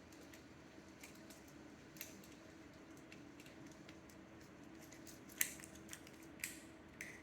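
Scattered small, sharp plastic clicks from a fidget cube being clicked and handled, sparse at first and closer together in the second half, the loudest about five and a half seconds in, over a faint steady hum.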